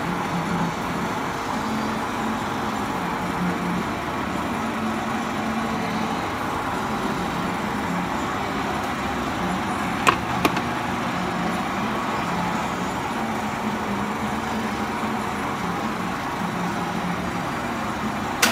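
Howa engine lathe running on test, its spindle and headstock gearing turning steadily with a constant low hum. Two sharp clicks come about ten seconds in, and a last click sounds near the end as the running noise drops away.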